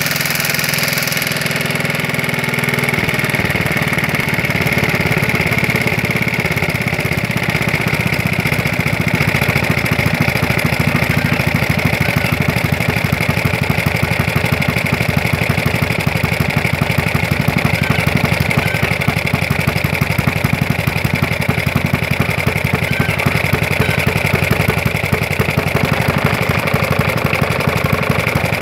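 Vintage Johnson Iron Horse single-cylinder, air-cooled engine running steadily while its carburettor is adjusted by hand; its running note changes about three seconds in and then holds an even beat.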